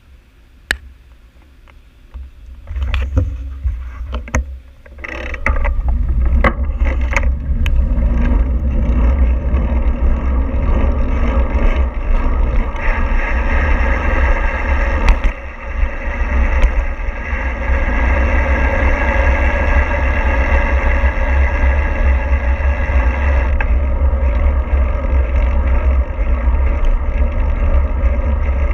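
A few clicks and knocks, then from about five seconds in a loud, steady low rumble of a vehicle under way, with a noisy rushing haze over it.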